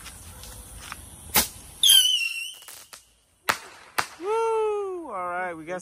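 Fireworks going off: several sharp cracks and a brief high whistle. Near the end comes a longer wavering tone that falls in pitch.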